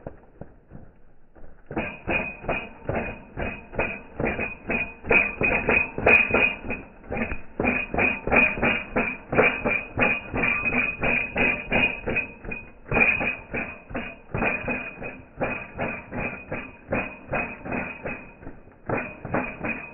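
Music with a fast, even beat of about four sharp strokes a second. It starts about two seconds in after a short lull and breaks off briefly a few times.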